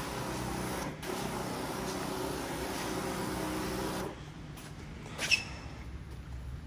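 Disinfectant sprayer running: a steady motor hum with the hiss of mist from the wand, which drops away about four seconds in as the spraying stops. About a second later comes a brief, sharp high squeak.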